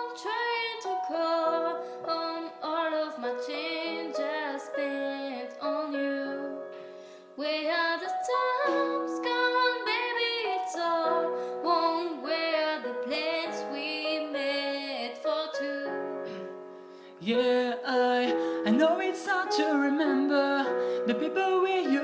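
Music: a voice singing a melody over piano accompaniment, in phrases with two short breaks.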